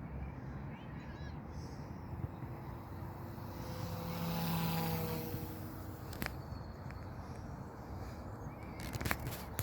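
OMPHOBBY M2 Evo electric RC helicopter flying, its rotor and motor whine swelling for a second or two about four seconds in as it comes closer, over a steady low rumble. There are a few short clicks later on.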